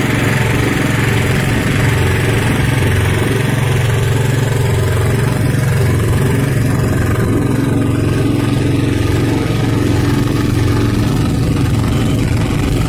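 The motor of a katinting, a small motorised outrigger boat, running steadily at an even speed, heard loud and close from on board.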